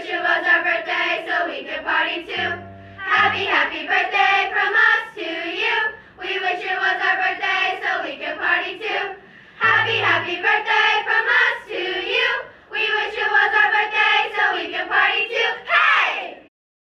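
A group of girls singing a song together, in phrases of a few seconds with short breaks between them; the last phrase ends just before the close.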